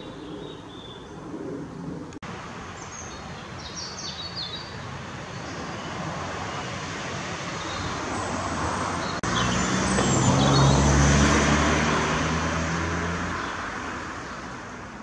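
Small birds chirp now and then. A passing motor vehicle's engine noise then swells to a peak about ten seconds in and fades away again.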